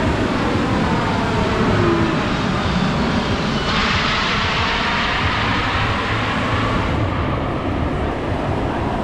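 Jet engines of a large military airplane flying past, a steady rumble and roar that brightens about four seconds in and eases off near the end.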